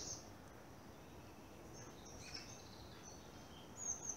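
Faint woodland birdsong: thin, high chirps and short call-notes from small birds, now and then, over a low, steady background hiss. A short cluster of calls near the end is the loudest part.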